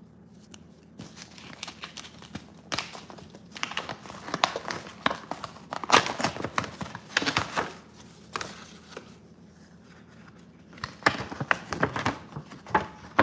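A paper envelope being ripped open by hand: paper tearing and crinkling in several irregular bursts with short pauses between.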